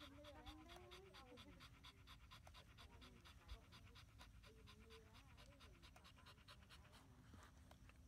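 Husky panting with its tongue out: a fast, even run of short breaths, faint.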